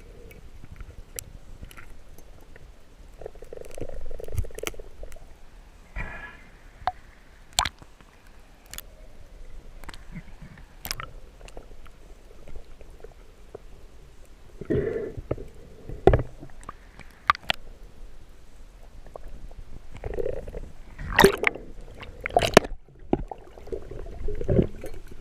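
Water gurgling and sloshing around a spearfisher in the sea, muffled surges that come and go, with scattered sharp clicks and knocks.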